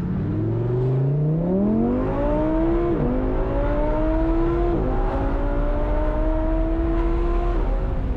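Audi R8 V10 with a valved aftermarket exhaust under hard acceleration: the engine note climbs steadily, drops sharply at three upshifts about 3, 5 and 7.5 seconds in, and climbs again after each of the first two.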